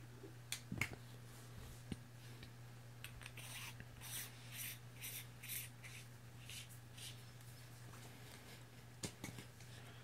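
Hands handling clear plastic caps and a flashlight. There are a few sharp clicks, then a run of short scraping rubs about twice a second in the middle, and two more clicks near the end, over a steady low hum.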